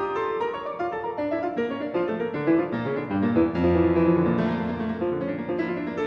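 Background music: classical piano playing quick runs of notes.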